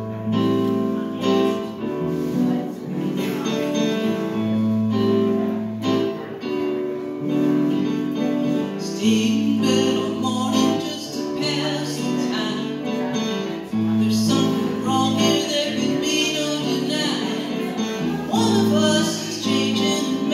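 Live band playing a song: a stage keyboard and an electric guitar playing held chords, with a woman singing into a microphone from about nine seconds in.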